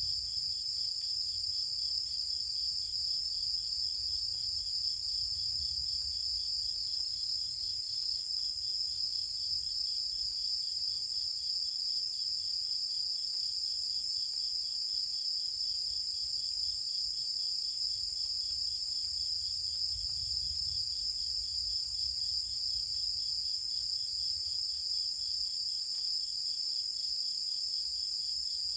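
A chorus of night insects singing continuously: a steady high-pitched trill, with a fainter, rapidly pulsing chirp just below it.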